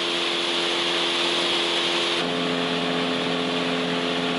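Outboard motor running steadily at speed as the boat planes across the water, with wind and water rushing past. About two seconds in the engine's note steps to a different steady pitch.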